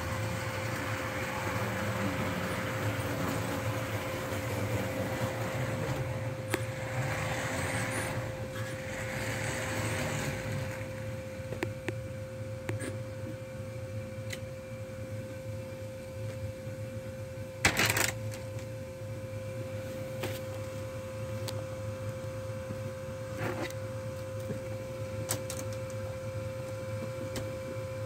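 A model train running on the track, a steady whirring clatter that fades out after about ten seconds as it moves away. A steady hum is left, with a few faint clicks and one sharp click about eighteen seconds in.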